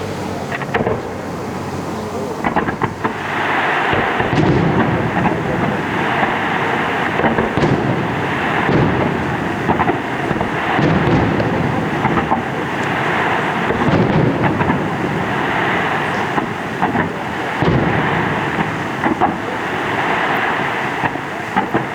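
Aerial fireworks going off in quick succession: repeated low booms about every one and a half to two seconds over constant crackling, growing denser about three seconds in.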